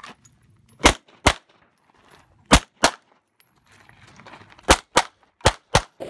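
Eight 9mm pistol shots fired as four quick pairs (double-taps), the first pair about a second in and the last two pairs close together near the end.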